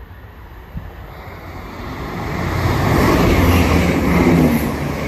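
Chiltern Railways diesel train approaching and passing along the platform. The rush of wheels and the low engine drone build steadily to a peak about three seconds in, then begin to fade.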